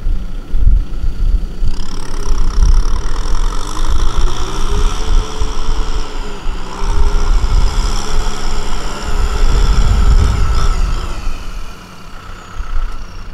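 Engine of farm machinery running, with a high pitched whine that sets in about two seconds in, rises and falls in pitch, and fades away near the end. Heavy low rumble of wind buffeting the microphone throughout.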